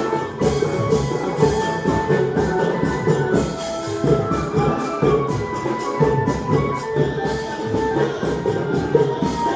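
Music with a steady drum beat under a melody of held notes.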